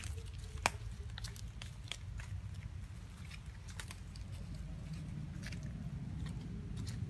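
Irregular sharp crackles and clicks of dry leaf litter, over a low steady rumble; the loudest crack comes about two-thirds of a second in.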